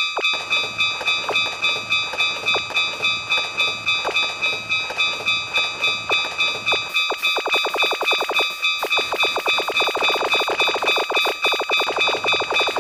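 Japanese railway level-crossing bell ringing its steady "kan-kan" about twice a second, with a passing train's wheels clicking over rail joints, the clicks coming quickly from about seven seconds in.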